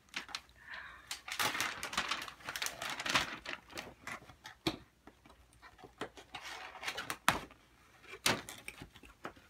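Wrapping paper tearing and crinkling as a gift is unwrapped, then a cardboard box being handled and its lid opened: an irregular run of rustles, taps and clicks, with a few sharper taps near the end.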